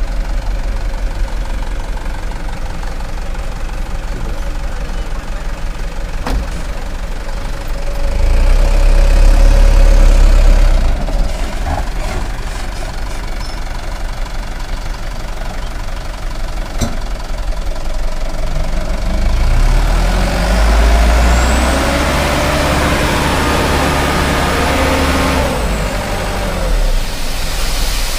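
Mitsubishi Colt Diesel dump truck's diesel engine running at idle, revving up twice: briefly about eight seconds in, then for several seconds from about twenty seconds in as the hydraulic hoist tips the loaded bed up. A few sharp clicks sound in between.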